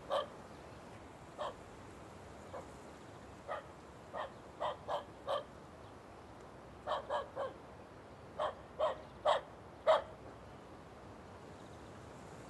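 A dog barking, about fifteen short barks, some single and some in quick runs of two to four, the loudest about ten seconds in.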